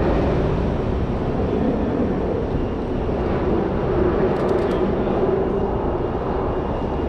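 Steady rumble of vehicle noise with a continuous low drone and no distinct events.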